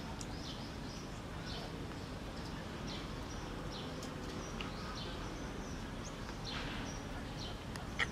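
Small birds chirping over and over against a steady outdoor background noise, with a sharp click near the end.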